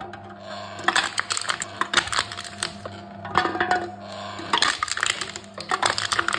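Aluminium cans being crushed in a can-crushing machine: crumpling metal crackles and clinks in three bursts, with a low steady hum beneath.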